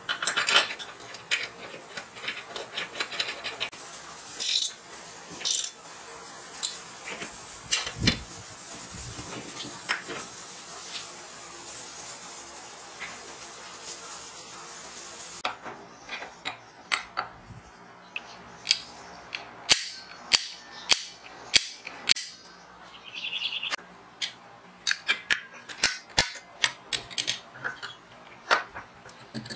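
Hand tools on steel: a wrench and bolts clinking and knocking against a motorcycle drum-brake hub and its steel frame during assembly, a string of sharp metallic clicks that comes thicker in the second half.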